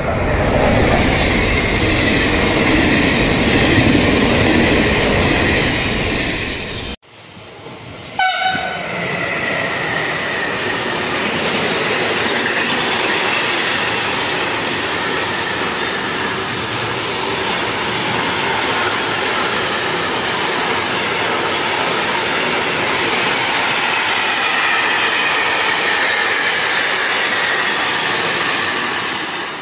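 Trenitalia E.464 electric locomotive and its regional passenger coaches passing close by with a loud rumble; the sound cuts off suddenly about 7 seconds in. A short train-horn blast follows, then a long intermodal freight train of trailer and container wagons rolls steadily past with wheel noise and a faint high squeal at times.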